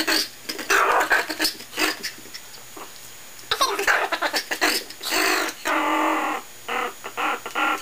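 Chihuahua vocalizing in bursts, growly barks and whining yowls, with one longer held cry about three quarters of the way through.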